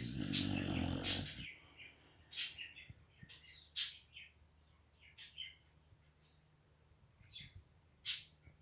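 Dog snoring: one long snore in the first second and a half, then a scattering of short high chirps.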